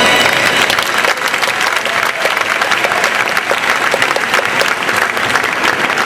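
Audience applauding steadily, dense clapping after a song's final chord.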